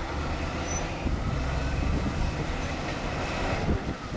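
Bulldozer working: its diesel engine running steadily under load with the metallic clatter and squeal of its steel tracks.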